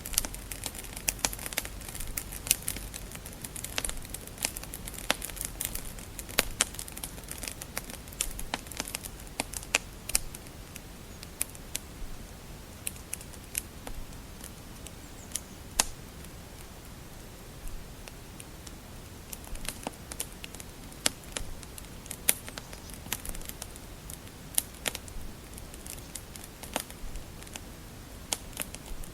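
Wood fire crackling: irregular sharp pops and snaps over a soft steady hiss, busier at the start and again near the end.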